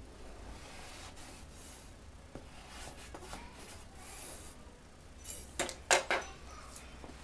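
A line being ruled on fabric: a marking tool rubbing and scratching along a ruler, with a few loud clacks of the ruler about five and a half to six seconds in.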